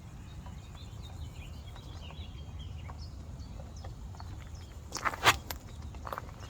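Faint bird calls over a steady low outdoor background, with a short cluster of sharp knocks about five seconds in.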